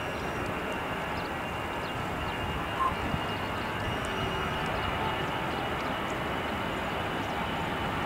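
Airbus A320 jet engines heard from across the airfield as the airliner rolls for takeoff: a steady rush with a faint high whine, growing a little louder about halfway through.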